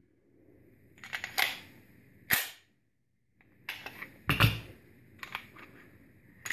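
Sharp metallic clacks and clicks of a Springfield XD(M) Compact pistol being worked by hand: the slide is racked and the magazine with its Mec-Gar +2 base pad is handled. The sounds come in two groups with a silent second between them. This is a feeding check of the extended magazine on its original spring.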